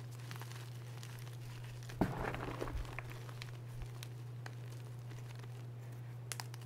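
Reformed gym chalk crushed by hand: a sharp crunch about two seconds in as a chunk breaks, then about a second of gritty crumbling, with scattered small cracks before and after. A steady low hum runs underneath.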